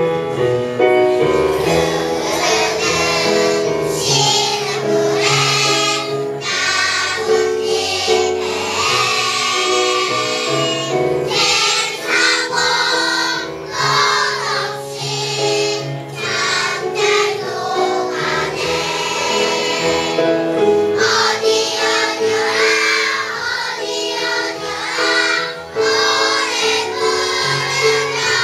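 Children's choir singing a song in unison, the voices continuous through the passage.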